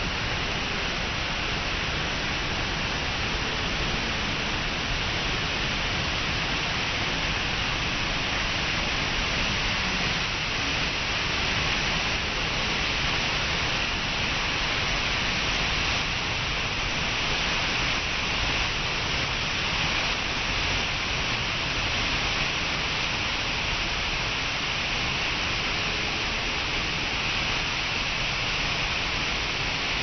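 Waterfall plunging into a rock pool: a steady, unbroken rush of falling water.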